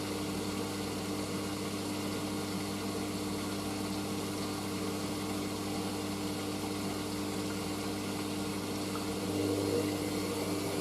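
Hoover AAA160 Whisper 1600 washing machine at the slow start of its final spin, drum turning while the machine checks the balance of the load. It gives a steady hum with several constant tones, getting a little louder about nine seconds in.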